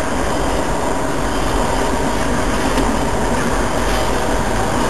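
Double-stack container freight train rolling past, a steady rumble and rush of its wheels on the rails.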